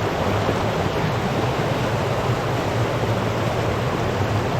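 Running water of a spring-fed stream, a steady rushing.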